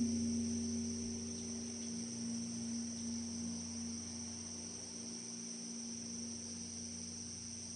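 Large Korean Buddhist bronze temple bell ringing on after a single stroke: a deep, sustained hum with a slow pulsing waver, fading over the first few seconds and then lingering faintly.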